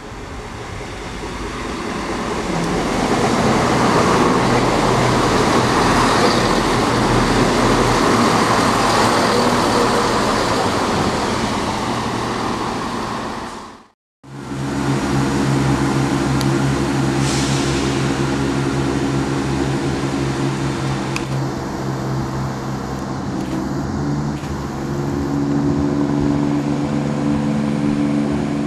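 A diesel multiple-unit train passes along the platform with a loud, rising rush of wheels and engine that holds, then cuts off abruptly about halfway through. Then the underfloor diesel engines of a Class 170 Turbostar DMU hum steadily as the unit runs into the platform, the engine note shifting a little near the end.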